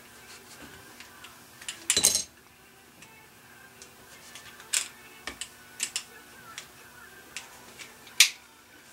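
Metal clicks and light scrapes of a Smith & Wesson Performance Center 1911 pistol's slide, guide rod and barrel bushing being worked back together by hand, with a cluster of clicks about two seconds in and a sharp click near the end. The guide rod sticks up a hair and catches until pressure comes off the slide.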